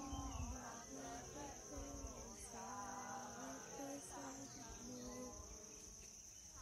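Insects making a steady, unbroken high-pitched drone in the forest, with a person's voice in held, stepping tones underneath.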